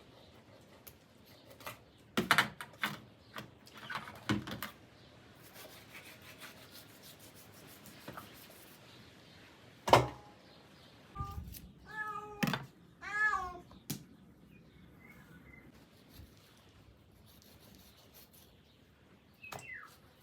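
A domestic cat meowing twice in quick succession, each meow rising then falling in pitch, just after a sharp knock. Scattered knocks and clatters come before it.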